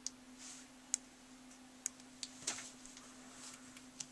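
Small plastic kit scissors snipping at gummy candy hair: three sharp clicks about a second apart, with softer handling noises between them. A faint steady hum lies underneath.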